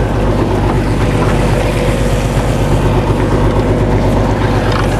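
Fishing boat's engine running steadily, a low droning hum, with water rushing along the hull.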